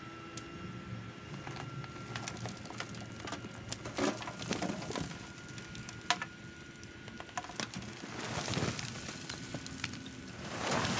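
Dump trailer bed tipping up to unload dirt and rock: scattered knocks and clatter of rocks shifting and dropping over a faint steady hum from the hydraulic hoist, with the rush of sliding soil swelling about eight seconds in and again near the end as the load pours out.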